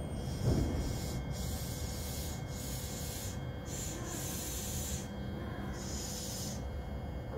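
Low steady rumble of electric commuter trains around a station, with four short hisses a second or so apart.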